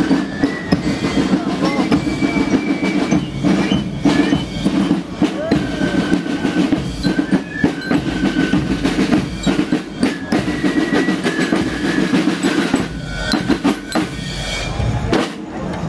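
Snare drums of a marching parade band drumming a rapid march beat, the strokes coming thick and fast.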